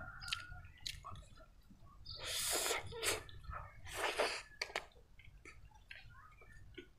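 A person eating omelette-wrapped fried rice: soft chewing and small mouth clicks, with two loud, noisy breaths about two and four seconds in.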